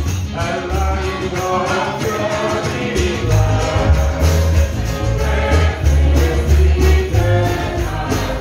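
Gospel song sung by several singers on microphones over accompaniment with a heavy bass line and a steady beat.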